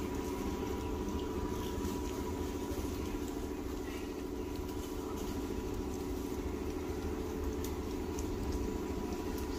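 A steady low mechanical rumble, like a motor running, with a faint constant high tone over it.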